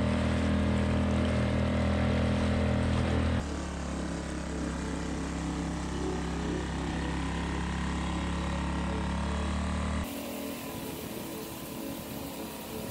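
Motorboat engine running steadily at a constant speed. The sound changes abruptly about three seconds in and cuts off suddenly near the end, leaving a quieter hiss.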